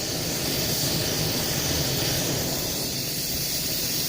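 Campfire burning down to coals: a steady noisy hiss with a fine, dense crackle underneath.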